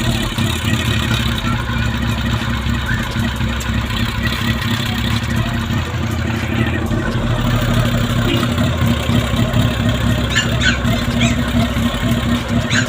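Honda CB400 four-cylinder motorcycle engine running steadily with its rattling noise, which the later teardown traces to a connecting rod with a lot of play in its bearing.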